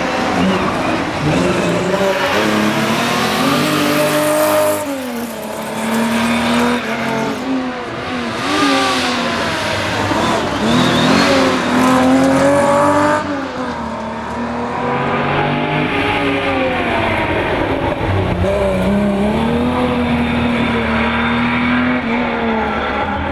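1961 Ford Zephyr rally car's straight-six engine driven hard, its revs climbing and dropping again several times over.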